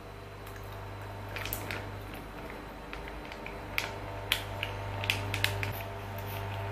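Light kitchen handling sounds: a sauce sachet being squeezed, then a quick series of sharp clicks and taps, like a spoon against a small glass, about four to five seconds in. A steady low hum runs underneath.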